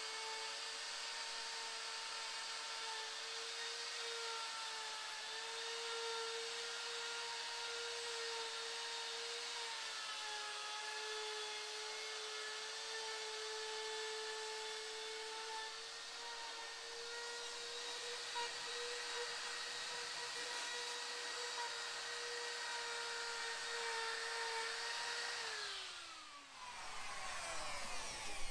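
Full-size router with a ball-bearing flush-trim bit running with a steady high whine as it trims overhanging formica laminate flush with the edge of a plywood panel. Near the end it is switched off and its pitch falls as it winds down.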